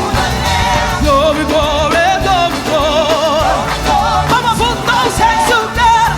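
Live contemporary gospel praise music: singers with vibrato over a full band with bass and drums.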